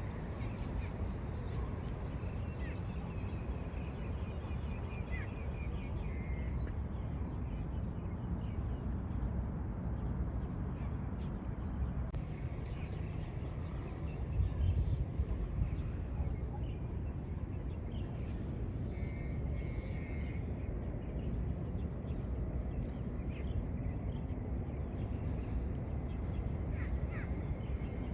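Birds chirping: many short high calls over a steady low rumble, with a few brief whistled notes among them.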